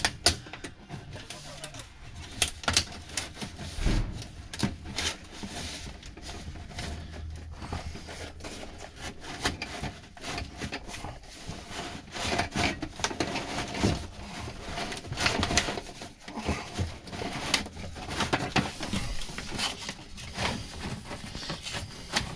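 Irregular crinkling, scraping and clicking of a flexible foil dryer vent duct and its clamp being worked by hand, as the duct is forced onto the exhaust register.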